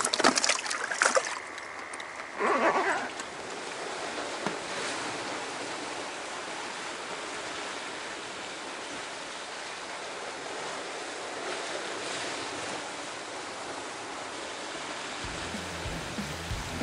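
Steady rush of sea surf washing over rocks. In the first three seconds a few short bursts of splashing and handling noise sound over it.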